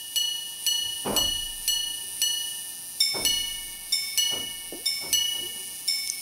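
Touchon minute repeater wristwatch chiming the time on its gongs: about two clear ringing strikes a second on one gong, then from about halfway through the strikes also sound on a second, higher gong, as the repeater moves from the hours to the quarters. A few soft low noises come between the strikes.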